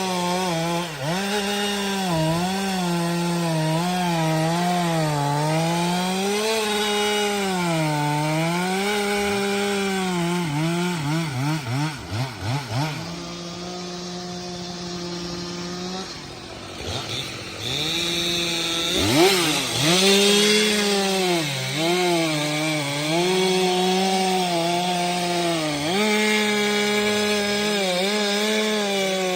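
STIHL MS 462 C-M two-stroke chainsaw running at high revs while cutting firewood, its pitch dipping and recovering again and again as the chain bites into the wood. About halfway through there are a few quick throttle blips and a short, quieter spell at lower revs. It then revs back up and cuts again.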